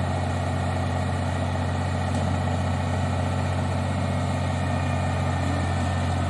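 Combine harvester with a straw-chopping attachment running steadily, a constant low engine drone with the hum of its threshing and straw-chopping works, as it goes back to cutting wheat.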